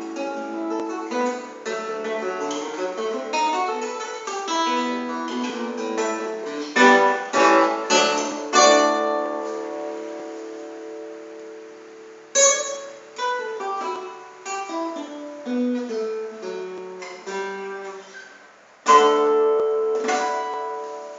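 Solo acoustic guitar playing a fingerpicked choro melody over a bass line. About nine seconds in, a few loud notes are left to ring and fade before the playing picks up again. It closes on two loud chords near the end.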